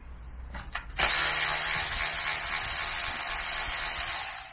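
Cordless electric ratchet running steadily for about three and a half seconds, starting about a second in and stopping sharply, as it unscrews a bolt.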